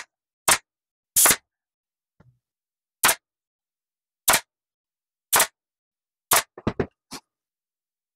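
Staple gun firing staples through vinyl into a boat seat cushion: a string of sharp snaps, roughly a second apart at first, then a quick run of three or four near the end.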